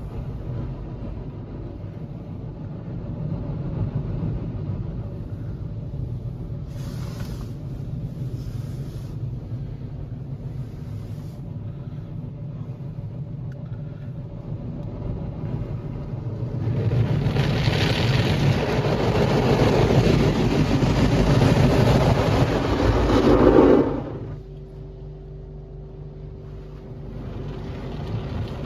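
Istobal M'Start rollover car wash heard from inside the car: a steady rumble with water running over the bodywork. About two-thirds of the way in comes several seconds of loud hissing spray from the high-pressure jets, which cuts off suddenly and leaves a steady machine hum.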